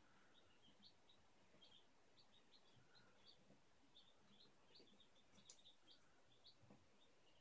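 Faint peeping of a brood of day-old Sussex, Wyandotte and Marans chicks: short high cheeps several times a second, with a few soft taps.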